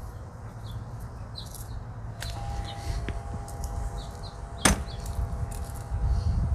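Toothbrush bristles scrubbing at the base of an amaryllis bulb: soft intermittent scratching over a low steady rumble, with one sharp knock a little after the middle.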